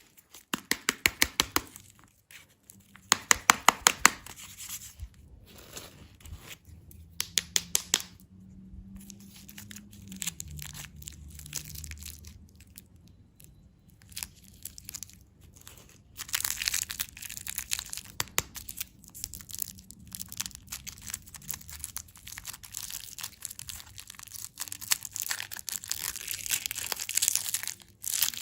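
Candy packaging being torn open and crinkled up close: several quick rattling runs of sharp ticks in the first eight seconds, then a long stretch of steady crinkling from about halfway through.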